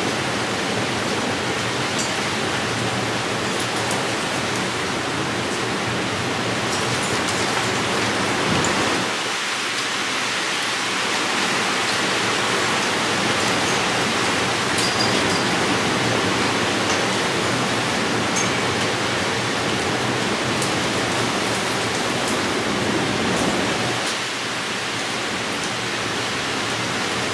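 Heavy thunderstorm downpour: a steady, loud rush of rain with scattered faint ticks of drops.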